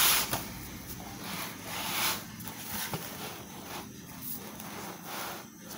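Paper handling: short rustling swishes as a book and notebook are moved about, three times, loudest at the start.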